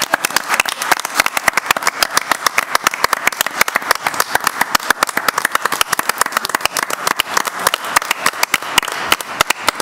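Audience applauding, many people clapping steadily and densely.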